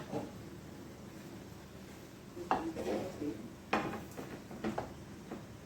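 Utensil clattering against a cooking pan in a few short knocks and scrapes, with a cluster about two and a half seconds in and single knocks near four and five seconds.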